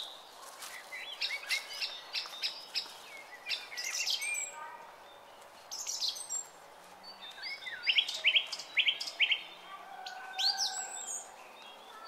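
Small songbirds chirping and singing in clusters of quick, high notes and short glides, several calls overlapping at times, over a faint steady outdoor background.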